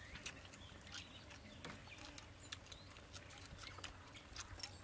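Faint eating sounds from people eating beef intestine with chopsticks: chewing, with scattered short clicks of chopsticks against small bowls.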